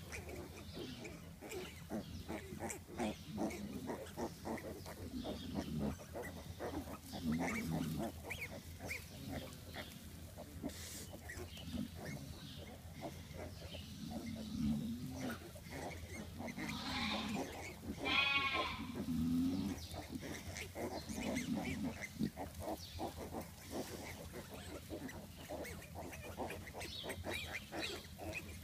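Nursing sow giving low grunts every couple of seconds while her newborn piglets suckle, with small clicks and rustles of the piglets in the straw. About two-thirds of the way through a piglet gives one short squeal.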